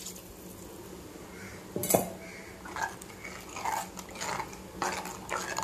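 Steel ladle stirring a thick curry in a clay pot: a sharp clink about two seconds in, then repeated short knocks and scrapes of the ladle against the pot.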